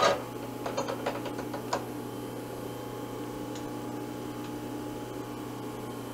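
A few light metallic clicks in the first two seconds as a long extended tap is handled and set by hand into a hole in a workpiece held in a milling-machine vise, over a steady electrical hum.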